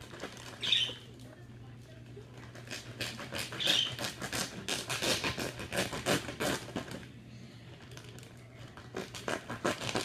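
Plastic bag of frozen fruit being worked open by hand, crinkling and rustling in spurts, busiest through the middle and again near the end, over a low steady hum.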